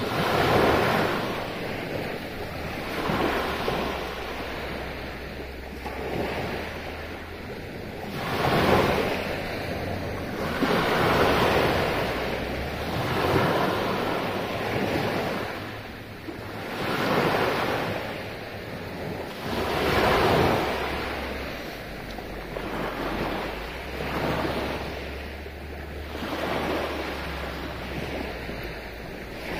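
Small waves breaking and washing up a sandy beach, the surf swelling and fading every few seconds, with a low rumble of wind on the microphone.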